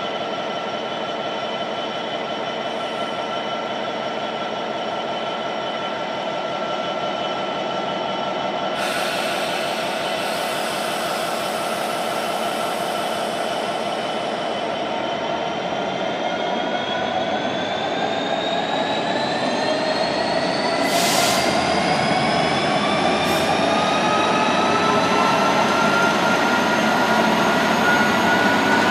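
Class 66 diesel locomotive standing with its two-stroke V12 engine running and a steady whine over it. From about halfway through the whine rises in pitch and the sound slowly grows louder as the engine powers up. Short hisses of air come about a third of the way in and twice more later.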